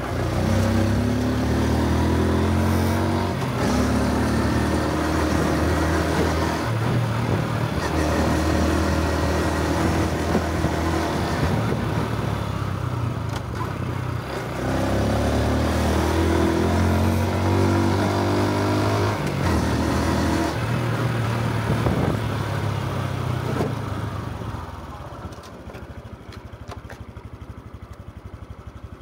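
Honda Super Cub C125 single-cylinder engine and exhaust under way, the pitch climbing and dropping back several times as the bike accelerates and shifts up through its gears. Near the end the engine eases off to a quieter, steady low note as the bike slows.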